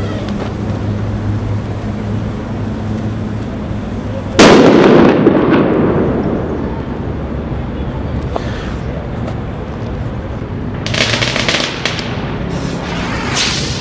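A Gironina 'Trueno Barreno' firecracker going off with a single loud bang about four seconds in, its echo fading over a second or so. Two softer, noisy bursts follow near the end.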